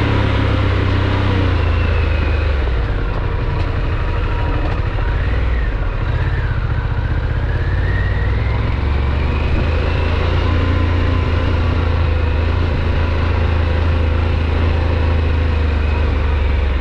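Harley-Davidson Pan America's liquid-cooled Revolution Max 1250 V-twin running as the motorcycle is ridden over a dirt course, its note rising and falling with the throttle over a steady low rumble.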